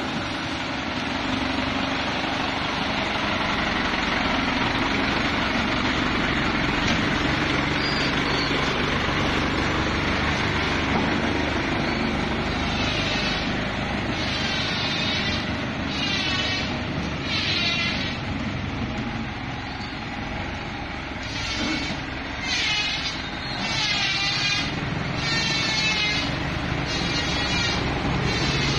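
Isuzu NMR71 light truck's diesel engine running as the truck drives slowly. From about halfway on, a series of short, high warbling sounds repeats roughly once a second.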